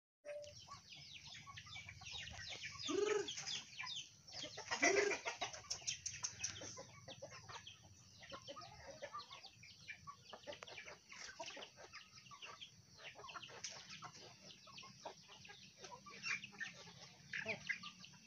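A flock of free-range village chickens clucking as they feed on scattered grain, with many quick pecking taps on the concrete. Two louder calls stand out about three and five seconds in.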